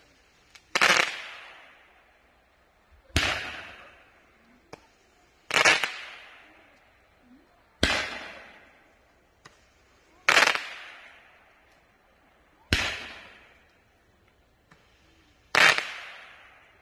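Roman candles firing: seven sharp bangs about two and a half seconds apart, each trailing off in an echo, with a few faint pops between them.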